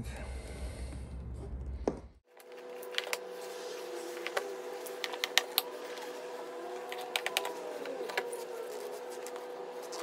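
Pliers and the plastic clips of a Porsche 911 door clicking and tapping as they are worked loose, with many irregular sharp clicks. A low hum cuts out abruptly about two seconds in, leaving a faint steady tone under the clicks.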